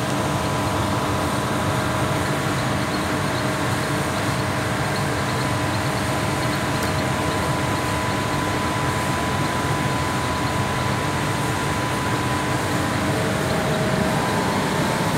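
20 HP floor-standing air conditioner running with its compressor on: a steady rush of blower air and machine hum, with faint steady tones over it.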